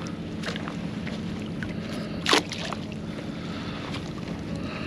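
Shallow bay water sloshing and lapping around a wading angler, with one short, sharp, louder sound a little over two seconds in.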